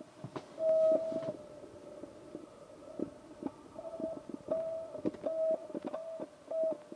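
An electronic beep tone, a single steady pitch, sounding on and off in irregular short and longer beeps, among scattered clicks and knocks.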